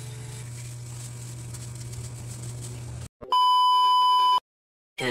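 A low steady hum cuts out about three seconds in. A loud, steady television test-tone beep of about a second follows, the tone that goes with TV colour bars, then it cuts off to silence.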